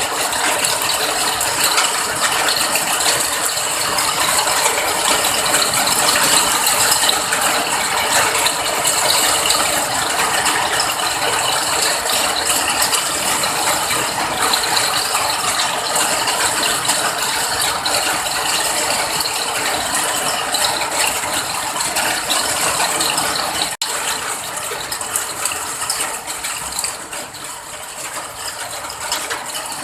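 Steady heavy rain, a dense crackling patter of many drops, cutting out for an instant about three quarters of the way through.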